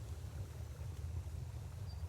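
Flowing river water, a steady low rush with a faint hiss over it.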